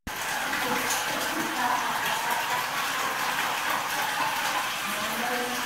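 Hot spring water pouring steadily into a bath, a constant rushing hiss.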